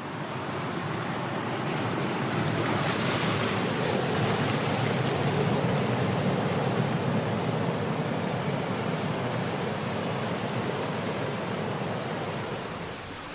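Ocean surf: a wave builds and breaks with a hissing wash a few seconds in, then the surge slowly eases off toward the end.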